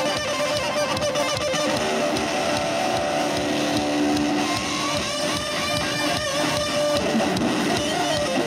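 Live band music led by electric guitar, with strummed chords over a steady beat.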